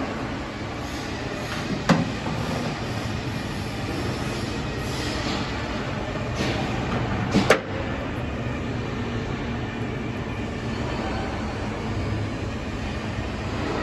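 Steady rumbling background noise with two sharp knocks, about two seconds in and about seven and a half seconds in, as hatch and storage fittings on a fibreglass boat deck are handled.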